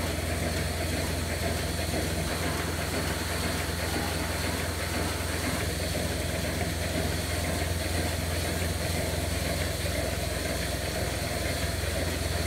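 Steady, unchanging mechanical hum of dairy-barn machinery: a strong low drone with a hiss above it, typical of an electric motor such as a milking system's vacuum pump or barn fans.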